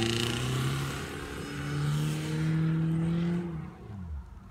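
BMW E36 engine revving while the car slides sideways across a dry field. The revs sag, climb at about a second and a half and hold high, then drop and fade near the end as the car pulls away.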